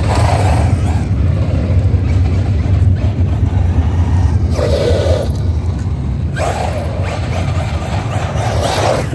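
Traxxas XRT Ultimate electric RC monster truck being driven, with louder bursts of motor and tyre noise right at the start, around five seconds in, and again from about six and a half to nine seconds, over a steady low rumble.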